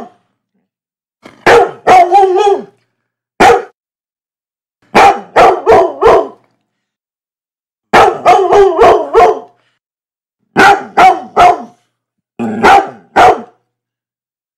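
A dog barking loudly in short bursts of one to five sharp barks, with clean silent gaps between the bursts.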